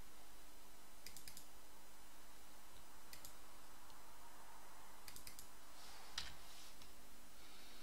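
Computer mouse buttons clicking in small quick clusters, about every two seconds, with a sharper single click a little past six seconds, over a steady faint hum and hiss.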